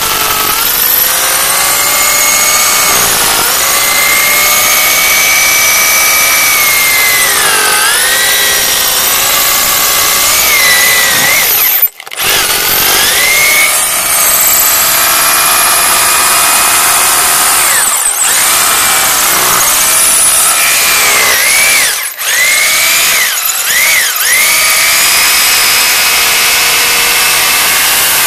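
Electric hammer drill with a 400 mm masonry bit boring down into a concrete wall footing, running steadily under load with its pitch wavering. It stops briefly four times, about 12, 18, 22 and 24 seconds in. The bit reaches its full length still in concrete.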